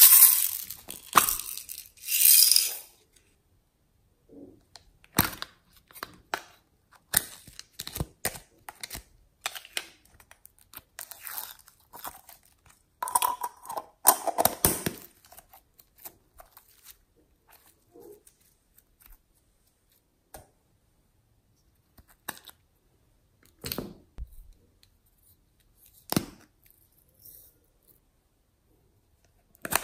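Plastic packaging crinkling and tearing for the first few seconds, then scattered clicks, taps and rustles of plastic slime containers and lids being handled and opened, with quiet gaps between.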